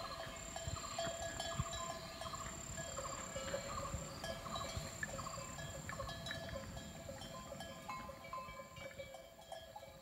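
Bells on grazing cattle clanking irregularly, over a steady high-pitched insect whine and repeated short pulsing calls from the surrounding forest. The sound fades a little near the end.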